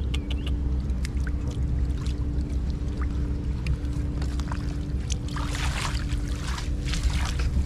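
Hands and a catfish splashing in shallow muddy water, with small clicks and drips and a denser burst of splashing about five seconds in, over a steady low rumble.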